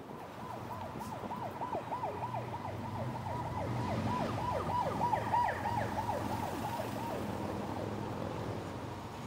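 Emergency vehicle's electronic siren sounding in a fast repeating pattern, several quick falling sweeps a second. It grows louder towards the middle and fades near the end as it passes.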